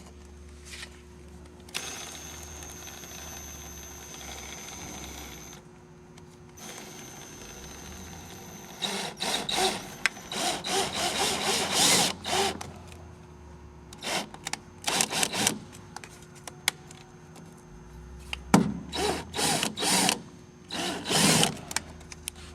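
Power screw gun driving the screws of an aluminum kick plate, run in a series of short bursts with brief pauses between them.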